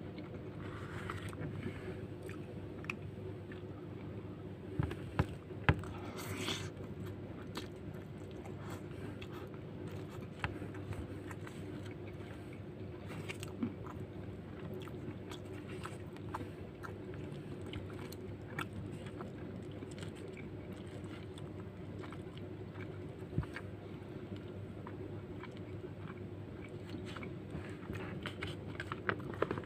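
Close-miked eating: a plastic spoon scraping and clicking against rice, fried beef lung and the paper wrapping, with biting and chewing, as scattered short ticks and clicks, the loudest a pair about five to six seconds in. A steady low hum runs underneath.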